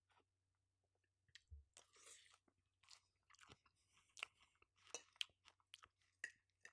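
A person chewing food, faint irregular crunching bites.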